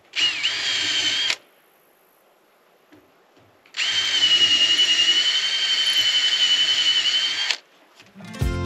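Cordless drill boring a pilot hole into the wall of a plastic water tank: a short run of about a second, its pitch dipping as the bit bites, then after a pause a longer steady whine of nearly four seconds.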